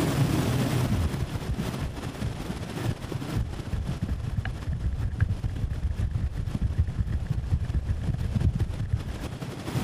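Wind buffeting a GoPro microphone on a towed inner tube as it is pulled fast across a lake: an uneven, gusting rumble with a hiss of rushing air and water.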